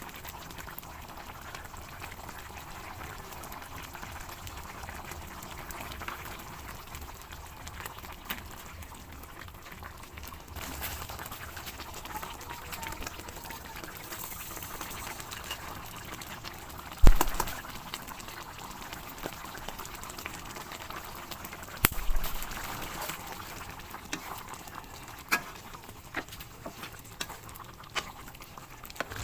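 Pork ribs caldereta stew simmering in a pot, a steady bubbling. There are two sharp knocks, about 17 and 22 seconds in, and a few lighter clicks near the end.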